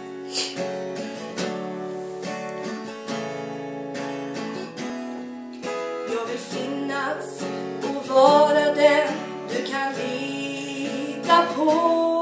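Acoustic guitar strummed in a song's opening, with a woman's singing voice coming in about halfway through over the chords.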